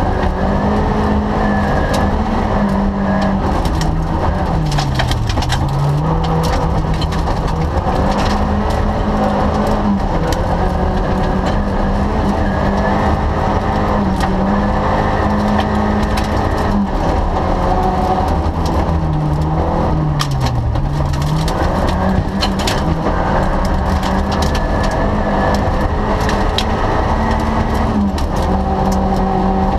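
Rally car's engine heard from inside the cabin, pulling hard on a gravel stage, its revs sagging and climbing back again about five seconds in and again around twenty seconds in. Gravel and stones crackle and clatter against the underbody throughout.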